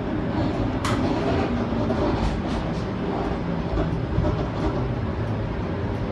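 Bombardier Flexity low-floor streetcar running along the track, heard from inside the car: a steady rumble of wheels on rail with scattered clicks and knocks, one sharper click about a second in.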